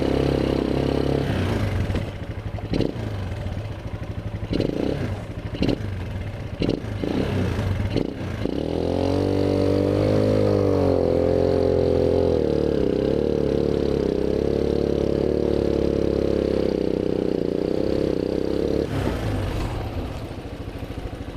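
ATV engine running under way over a rough trail, with several sharp knocks and rattles in the first third. About eight seconds in the engine revs up and holds steady higher revs, then eases off near the end.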